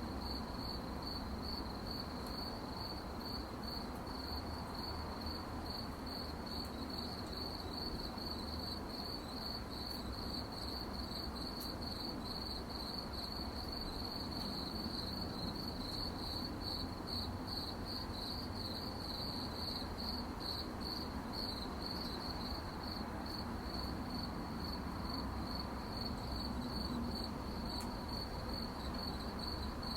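Crickets chirping at night, a steady pulsing high-pitched chorus, over a low even background hum.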